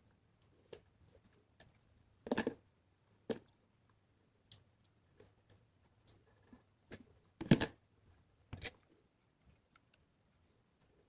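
Irregular clicks and light knocks of small electronic parts, wires and tools being handled during assembly. Two louder knocks stand out, one a couple of seconds in and one past halfway.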